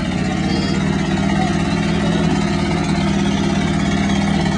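A vehicle engine running steadily at an even pitch, with no revving.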